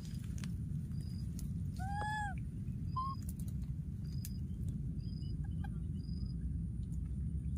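A baby monkey gives one arched coo, rising then falling in pitch, about two seconds in, with a shorter squeak a second later. Short high chirps repeat roughly once a second over a steady low rumble.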